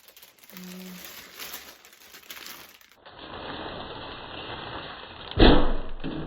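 Rustling and handling noise while a ring light and its stand are set up, with a loud thump a little over five seconds in.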